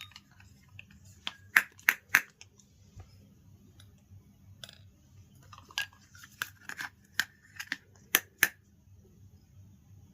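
Small plastic toy kitchen pieces being handled, giving sharp clicks and taps. The loudest clicks come in a group of three about one and a half to two seconds in, and two more come about eight seconds in.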